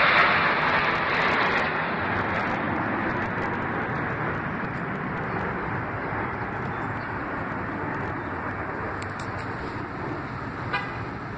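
Jet noise from a formation of Blue Angels F/A-18 Hornets passing, fading steadily as the jets fly away. A brief click near the end.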